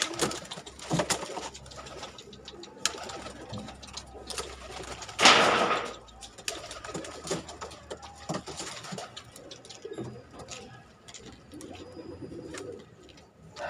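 Domestic pigeons cooing, with scattered clicks and taps, and a loud rustling burst about five seconds in.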